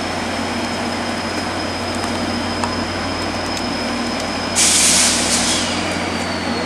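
Two F40PH-2 diesel locomotives, 16-cylinder two-stroke engines, running steadily as the train pulls out: a continuous engine drone with a thin high whine over it. About four and a half seconds in, a loud hiss of released air lasts about a second.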